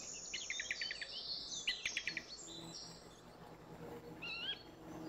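Small birds chirping quietly: two quick runs of rapid high chirps in the first two seconds, then a few short warbling notes near the end.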